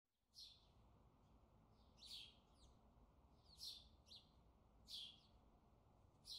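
Faint bird chirps: about six short, falling calls, one every second or so.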